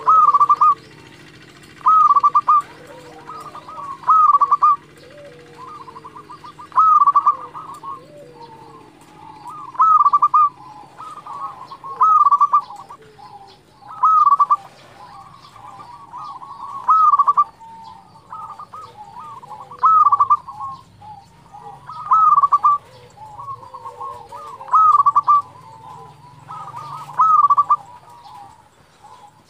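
Zebra dove (perkutut) of the local strain cooing its song: about a dozen loud phrases, one every two to three seconds, with fainter calls between.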